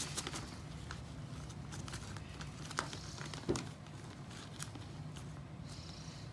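Superworms crawling on a clear plastic tub: faint scattered ticks and scratches, with two sharper clicks near the middle, over a steady low hum.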